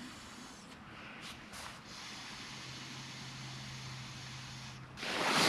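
Faint steady background hiss with a faint low drone through the middle. Near the end comes a sudden loud rustling noise.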